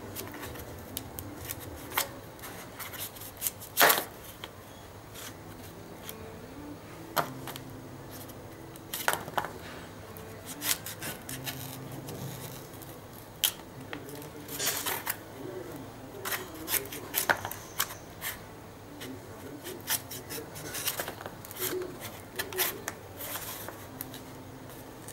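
A small kitchen knife cutting and prying into the white flesh of a palmyra palm fruit, making an irregular string of crisp cuts and scrapes. The loudest cut comes about four seconds in.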